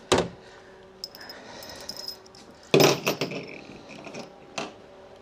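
Clinks and knocks of metal parts and hand tools being handled during engine disassembly: one sharp knock at the start, a cluster of them about three seconds in, and another near the end.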